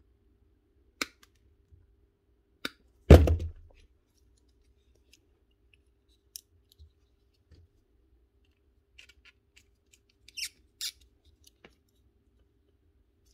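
Scattered small clicks and snips of pliers stripping mains cable cores and of wires being seated in a plastic three-pin plug. One heavier knock, the loudest sound, comes about three seconds in, as the pliers are set down on the workbench.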